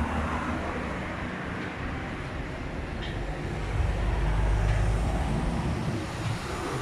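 Street traffic: a steady rumble of passing vehicles, swelling as a heavier vehicle goes by about four seconds in.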